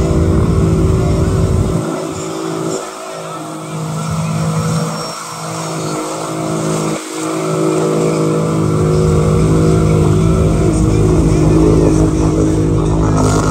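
ATV engine running hard under load as the quad wades through deep muddy water, with the rush of thrown spray. The engine note holds steady, and the deep part of the sound thins out for a few seconds in the middle.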